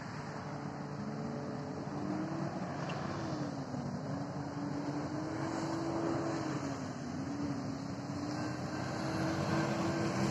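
A Union Pacific move of three diesel locomotives running through a grade crossing: a steady engine drone whose pitch wavers up and down, slowly growing louder.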